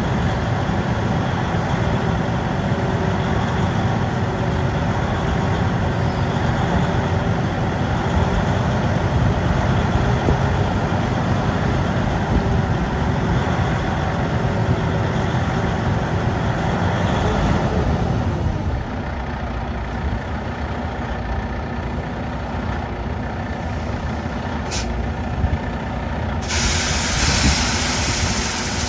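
Freightliner 122SD dump truck's diesel engine running while the raised dump body is lowered. About eighteen seconds in it drops to a quieter idle, and near the end a loud hiss of compressed air starts suddenly.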